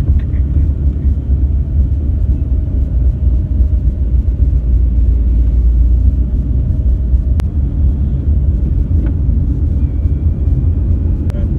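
Inside a moving car's cabin: a steady low rumble of road and engine noise, with a faint click about seven seconds in and another near the end.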